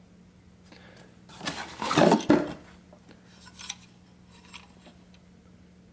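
Hard objects being handled: a short clatter about two seconds in, then a few light clicks.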